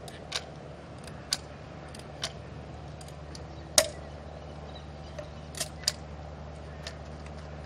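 Sharp single clicks from a hand-pumped two-part foam dispensing gun as it injects structural marine foam into a hole in a fiberglass deck. The clicks come irregularly, about once a second at first, with the loudest about four seconds in, over a steady low hum.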